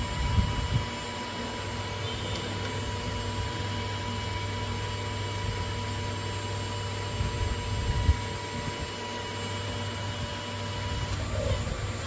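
Small electric hydraulic pump running with a steady hum while an RC hydraulic valve block is operated, with a few low thumps along the way. The hum cuts off about eleven seconds in.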